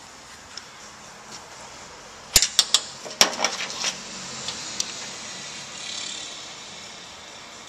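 Sharp metallic clicks and clatter of a hand tool working against a power seat's metal track mechanism: three quick clicks about two and a half seconds in, then a rapid cluster of clicks and rattles, then a few lighter ticks.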